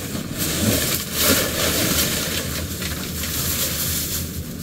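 Plastic bag and packing material rustling and crinkling as they are handled and pulled out of a cardboard box, in uneven surges.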